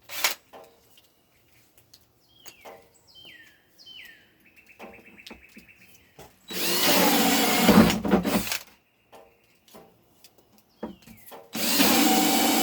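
Battery-powered cordless drill boring holes through plastic: two runs of about two seconds each, the first starting about halfway in and the second near the end, with light clicks of handling between them.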